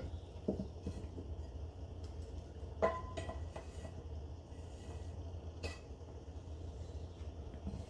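A glass jar and a metal canister being handled and set down on a wooden counter: a few soft knocks, a short ringing clink about three seconds in, and a click near six seconds. A low steady hum runs underneath.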